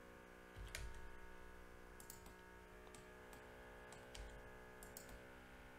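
Faint, scattered clicks of a computer mouse and keyboard, a few in quick pairs, over a steady low electrical hum.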